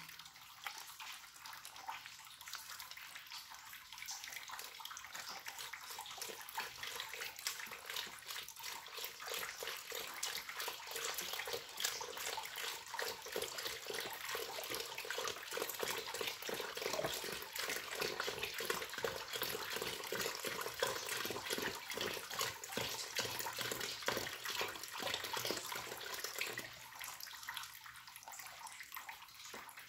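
UHT full-cream milk pouring from a carton into a stainless steel pot, a continuous splashing trickle that fades near the end.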